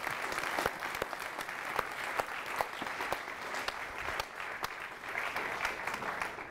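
A seated audience applauding steadily, many hands clapping at once.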